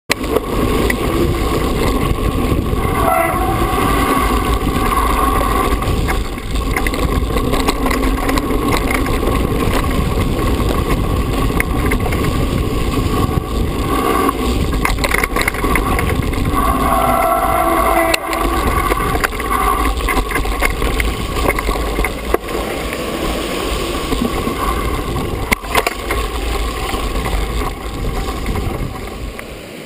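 Mountain bike ridden over a rough stony lane, heard from a GoPro on the bike: wind buffeting the microphone and tyres running over gravel, with many short knocks and rattles from the bumps. A brief squealing tone comes twice, about three and seventeen seconds in.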